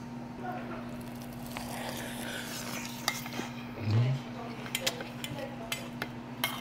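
Cutlery clinking and scraping against dishes during a meal, with several sharp clinks in the second half and a dull low thump about four seconds in, over a steady low hum.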